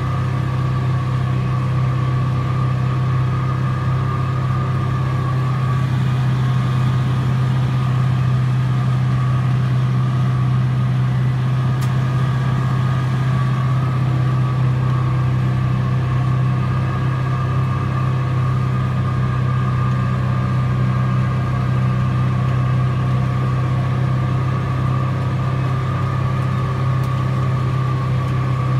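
Tractor engine running at a steady working speed while mowing with a front-mounted mower, heard from inside the cab: a low, even drone with a steady higher whine above it.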